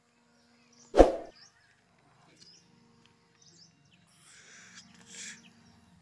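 Faint bird chirps, with one sharp knock about a second in and a soft rustle near the end.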